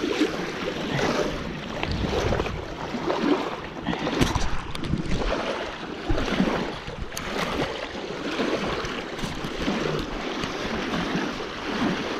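Small waves and boat wakes washing against a rocky shore, the splashing swelling and falling every second or so, with some wind on the microphone.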